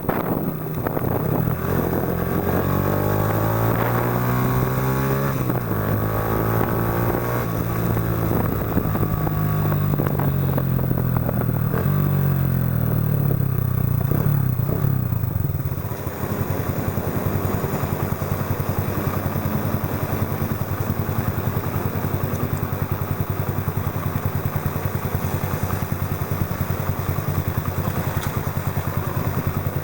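Yamaha Factor 125 single-cylinder four-stroke engine running through a Roncar Aluminium RS aftermarket exhaust while riding. Its pitch rises and drops repeatedly as it accelerates through the gears, then about halfway through it settles to a steady low beat.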